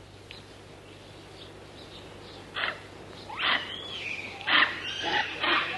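Birds calling over a low steady hum: a few faint chirps, then from about two and a half seconds in a run of loud calls with quick rising and falling sweeps in pitch.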